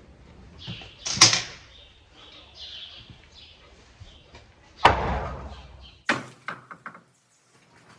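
Two loud bangs in a barn stall, about a second in and near five seconds in, then a few quick clicks, like a gate or boards being knocked as someone moves about the stall.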